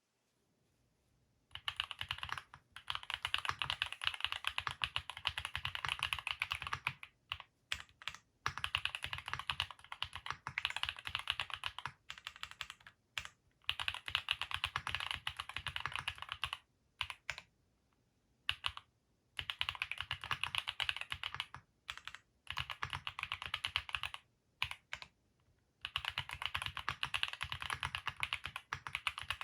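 Typing on a Vertex Arc60 custom mechanical keyboard fitted with Haimu Sea Salt linear switches. Fast runs of keystrokes come in bursts of a few seconds with short pauses between them, starting about a second and a half in.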